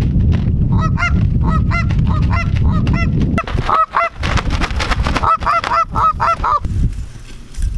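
Canada goose honks and clucks: a series of short, arching notes that quicken into a rapid run of clucks over the last couple of seconds. Heavy wind rumble on the microphone through the first half.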